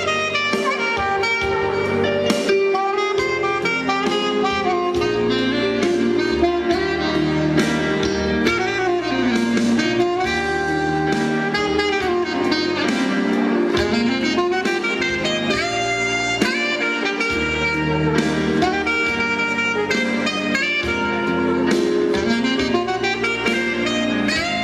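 A saxophone plays a melody over electronic keyboard accompaniment with a steady beat.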